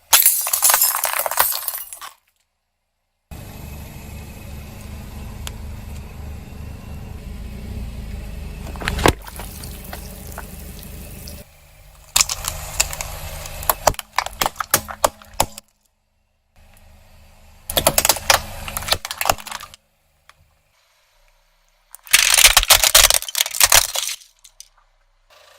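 A series of short, hard-cut clips of objects being crushed and popping under a car tyre: bursts of dense crackling and snapping, each lasting a second or two. One longer stretch has a steady low rumble with a single sharp crack about nine seconds in.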